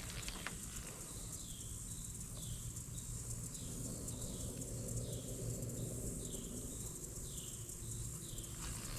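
A bird calling outdoors, a short falling note repeated about once a second, over a steady low rumble of wind or handling on the microphone.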